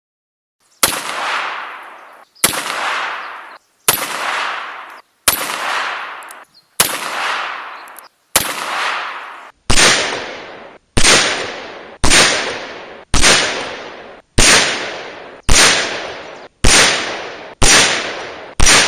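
Ruger Super Redhawk .44 Magnum revolver firing at steel targets: about fifteen loud shots, each with an echo tailing off over roughly a second. The first six come about a second and a half apart, the last nine faster, about one a second.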